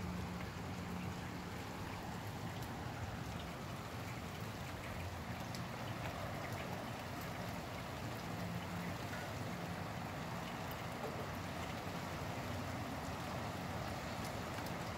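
Steady rain falling, with scattered drops ticking close by, over a low rumble.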